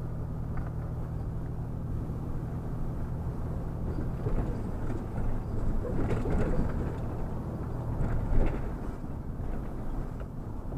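Steady low drone of a vehicle's engine and road noise inside the moving vehicle, with some fainter irregular sounds over it in the middle of the stretch.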